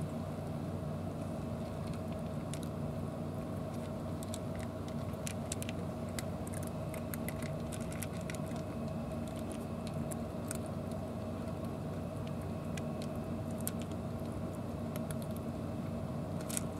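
Cats crunching dry kibble from plastic dishes: quick, irregular crisp clicks of chewing, busiest in the middle. Under it, a steady low mechanical hum.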